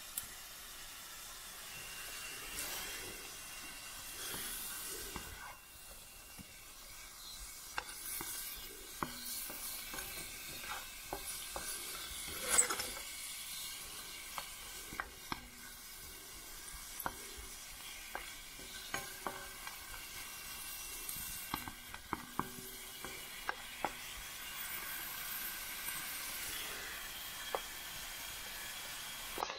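Meat sizzling in a steel frying pan, with frequent short clicks and scrapes as it is stirred, and one louder knock about halfway through.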